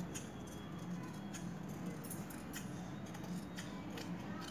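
Heavy metal tailor's shears cutting through blouse fabric, a series of faint, crisp snips about every half second as the blades close along the chalk line.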